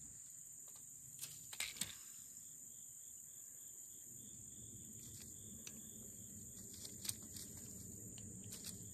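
Insects droning steadily at a high pitch, with a few faint clicks.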